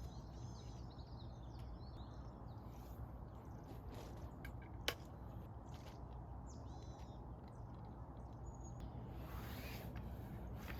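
Small birds chirping in short bursts, near the start and again about halfway, over a faint steady low background noise, with one sharp click about five seconds in.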